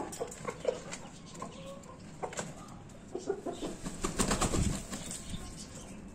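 Chickens clucking a few times. About four seconds in comes the loudest sound: a rooster beating its wings in a short, rapid flurry.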